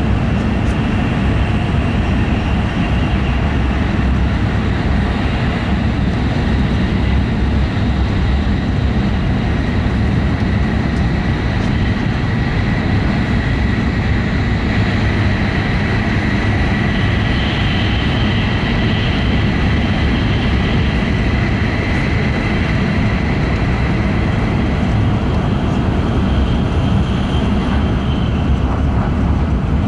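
E5 series Shinkansen running at speed, heard from inside the passenger cabin: a steady loud rumble of the running gear with a faint high whine that strengthens in the middle.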